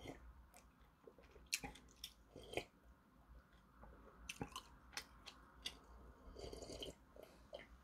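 Faint mouth sounds of beer being sipped and swallowed from a glass, with scattered small wet clicks.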